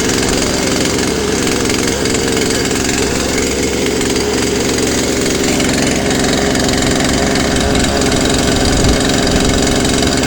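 Two-stroke chainsaw idling steadily, freshly cold-started on a newly fitted replacement carburetor. The idle may be set a little too high, enough that the chain tries to move.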